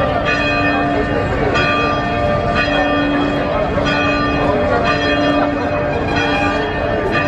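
Church bells ringing, struck about once a second, each strike ringing on into the next.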